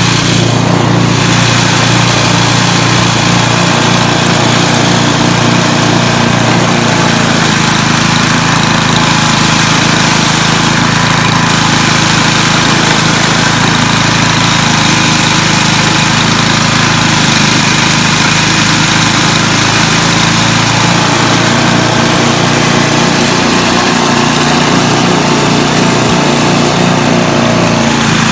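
Single-cylinder gas snowblower engine running steadily under load while the auger chews into a heavy snowbank and the chute throws snow, with a steady hiss of snow over the engine note.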